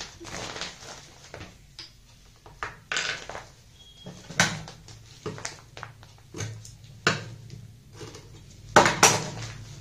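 Handling sounds of a quilted cloth bag lined with plastic sacking being shifted and straightened at a stopped sewing machine: rustling and crinkling with scattered sharp clicks and knocks, the loudest two close together near the end.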